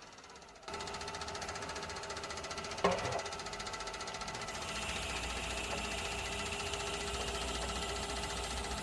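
Wood lathe switching on less than a second in and running steadily with a fast even pulse, with a single knock about three seconds in. From about five seconds a drill bit bores into the spinning wooden handle blank, adding a higher rasping note and more low rumble.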